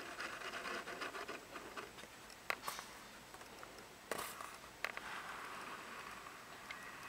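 Handling noise on a Canon Rebel T3 (1100D) DSLR and its 18-55mm kit lens, picked up by the camera's built-in microphone: a faint rustling hiss with a few sharp clicks, the loudest about two and a half and four seconds in.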